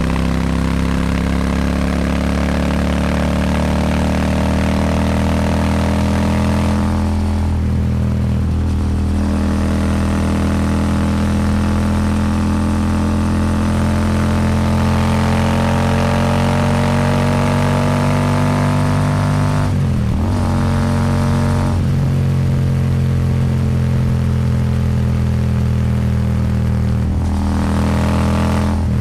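Royal Enfield Super Meteor 650's 648 cc parallel-twin engine through a Rhino Racing slip-on exhaust, riding under throttle with wind noise. The engine note climbs slowly in pitch and breaks briefly three times, as at gear changes.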